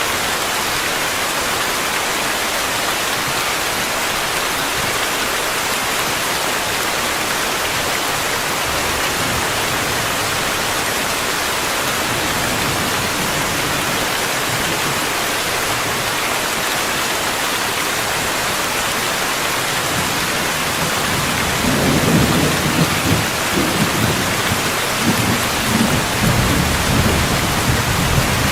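Steady rainfall, an even hiss, with a low rolling rumble of thunder that builds from about halfway through and is loudest over the last several seconds.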